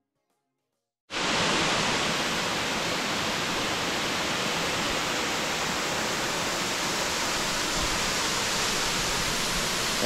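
Waterfall of the 70-foot upper Catawba Falls: falling water rushing steadily, cutting in abruptly about a second in after near silence.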